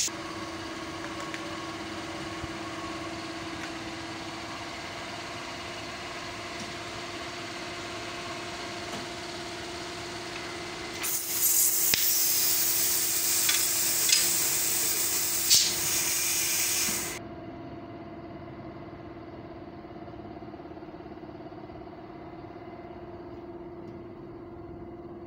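The electric motor of a small plastic blow molding machine comes on with a click and runs with a steady hum. From about 11 to 17 seconds a loud hiss of air, with a few clicks in it, drowns out the hum, which then carries on alone.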